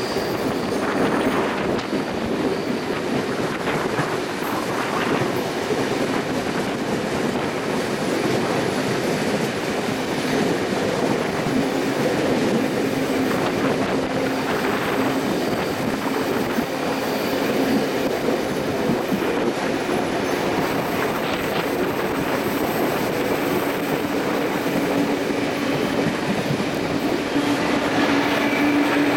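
Steam-hauled passenger carriages rolling slowly over curved track and pointwork: continuous wheel-on-rail running noise with occasional clicks over rail joints and a wheel squeal. A steady low squeal comes up in the last few seconds as the carriage enters the tunnel.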